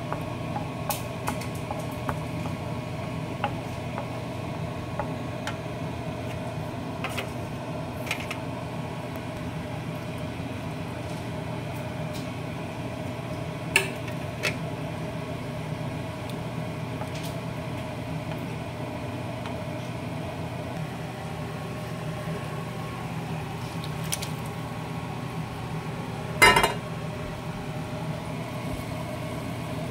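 A wooden spoon knocking and scraping in a nonstick frying pan of simmering sauce, with a few sharp taps and a louder clatter near the end. Under it runs a steady low machine hum.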